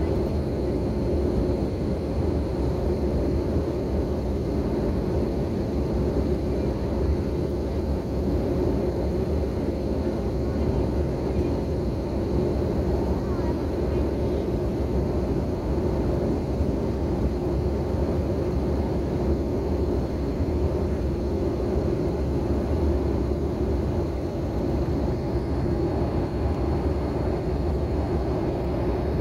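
Steady cabin noise of a jet airliner in flight, heard from inside the cabin: a constant rush of airflow and engine drone, with a faint high steady whine.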